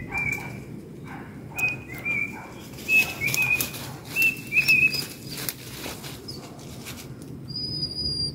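A person whistling short, high notes about twice a second to call the hunting dogs. Sharp rustling and crackling comes through the middle, and a single higher held note near the end.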